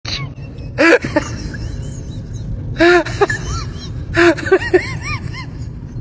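Comedy sound effect: three loud squeaky bursts, about one, three and four seconds in, each trailing off into short chirps that rise and fall in pitch, over a steady low rumble.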